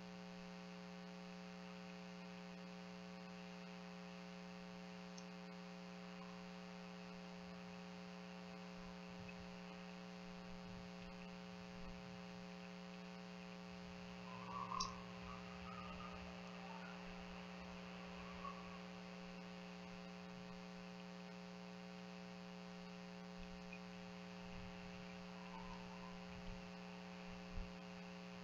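Steady electrical mains-type hum from the critter camera's recording circuit, with a stack of even overtones, and a few faint brief sounds about halfway through.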